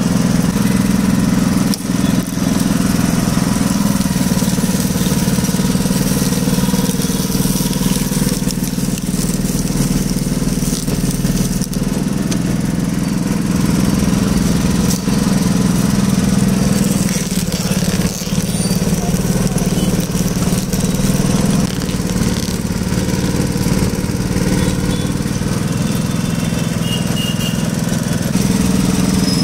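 Motor-driven wooden sugarcane juice crusher running steadily with a low, even hum, with an occasional knock.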